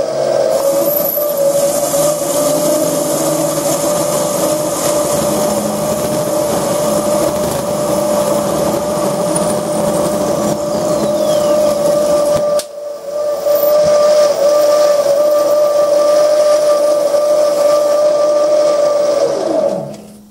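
Sieg SC2 mini lathe running fast with a steady motor whine while a parting tool cuts into a spinning metal bar. The sound briefly cuts out about two-thirds of the way through, then resumes. Near the end the whine falls in pitch and fades as the lathe spins down.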